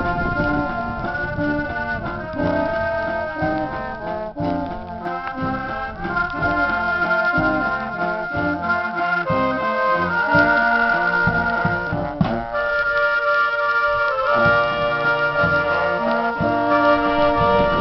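A dweilorkest, a Dutch street brass band, playing a lively tune. Several trumpets and a saxophone carry the melody over a bass drum and snare drum.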